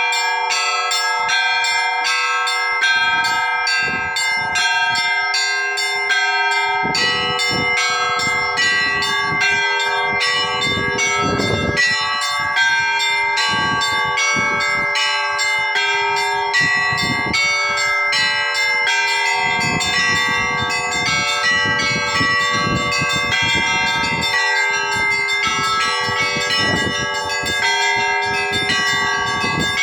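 Monastery church bells rung together: quick, repeated strokes on the smaller bells over the lasting ring of several bells, with deeper strokes of a larger bell coming in at irregular intervals.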